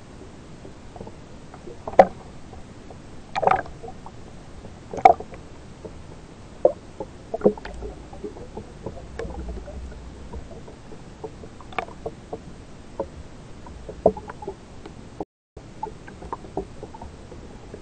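Sea water sloshing and slapping around a waterproof action camera at the surface, with a steady hiss and a dozen or so sharp splashes, the loudest about two and five seconds in.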